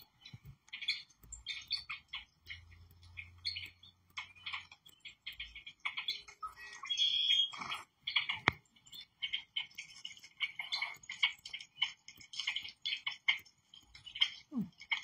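Birdsong from a bird video playing on a television: a steady run of quick, high chirps and short trilled phrases, one after another.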